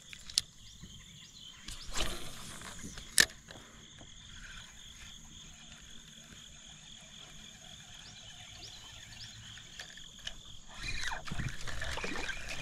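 A steady high-pitched chorus of calling wildlife from the riverbank, with a few sharp knocks of tackle about two and three seconds in. Water sloshing grows louder near the end.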